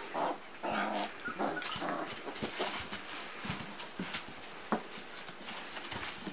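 Mother dog and her puppies playing: a run of short yips and play noises, busiest in the first two seconds and sparser after, with a sharp tap about halfway through.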